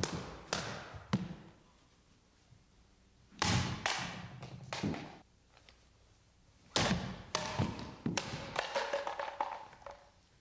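Katana cutting through rolled straw mats and bamboo in quick runs of strokes: sharp cracks as the blade strikes, with thuds of cut pieces falling. The strikes come in three bursts separated by short pauses.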